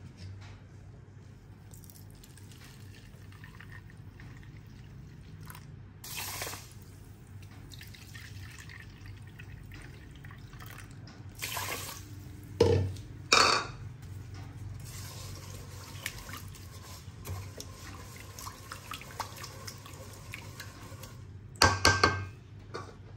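Kitchen water sounds: pouring and dripping water, with a few sharp knocks of dishes or utensils, the loudest a little past the middle and near the end.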